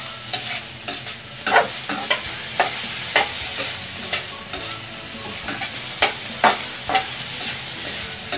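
Metal spatula scraping and knocking against a wok as diced pork is stirred, about two strokes a second, over the steady sizzle of the pork frying in oil.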